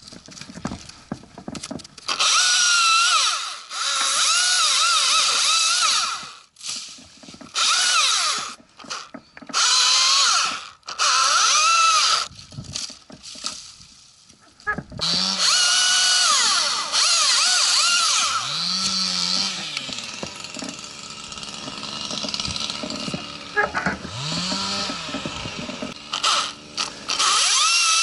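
Chainsaw cutting a tree limb in repeated bursts, its motor whine rising and falling in pitch as the chain bites into the wood.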